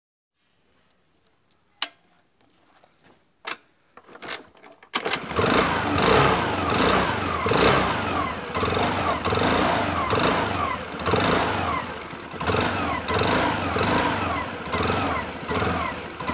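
Honda Activa scooter's single-cylinder four-stroke engine starting about five seconds in, after a few sharp clicks, and then running on its freshly cleaned carburetor, whose clogged jets had kept it from starting. The engine speed rises and falls a little as it runs.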